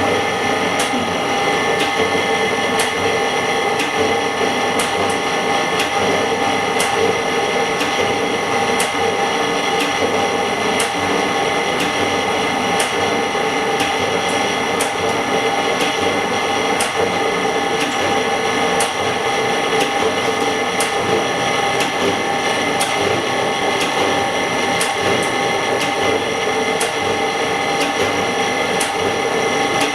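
Semi-automatic LCD separator machine running with a steady whine and a sharp tick about once a second, as its steel cutting wire separates cracked glass from a phone's LCD.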